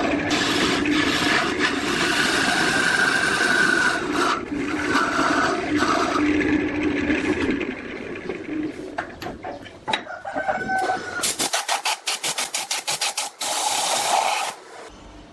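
Woodturning: a tool or abrasive rasping steadily against spinning wood, fading out about eight seconds in. Near the end comes a fast run of sharp ticks.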